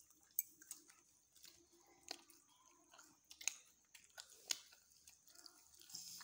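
Faint chewing with scattered small wet clicks: someone eating naan dipped in chicken korma, with fingers working the curry on the plate.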